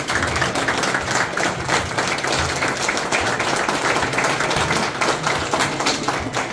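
A small group of people clapping their hands in applause, dense and steady.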